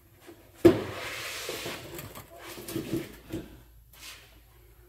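Hands handling small hardware at a tie-rod bracket: a sharp click about half a second in, about a second of rustling hiss, then a few light knocks.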